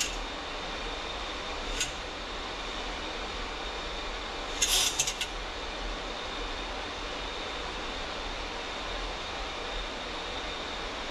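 Steady rushing noise inside a Boeing 737 flight deck in flight, with a faint high whine. A single click about two seconds in and a quick cluster of sharp clicks about five seconds in.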